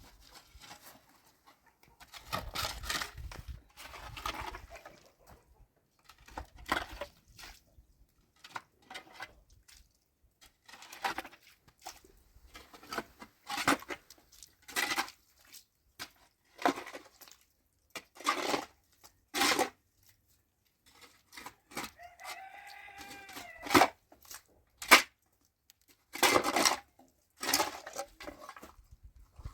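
A rooster crows once, a drawn-out call about two-thirds of the way through. Around it come repeated short, sharp noises of hands-on work.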